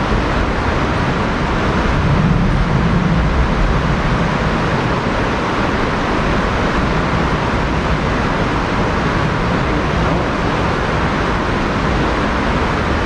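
Steady rush of a small mountain river's flowing water, an even noise that swells slightly a couple of seconds in.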